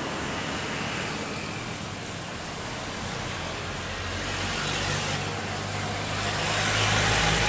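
Steady engine noise with a low hum, growing louder over the last couple of seconds.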